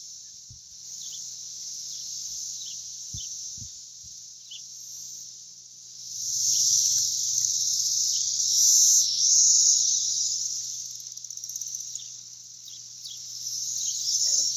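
A dense chorus of thousands of periodical cicadas buzzing in the trees, a steady high-pitched drone that swells louder about halfway through and again near the end, with short individual calls over it.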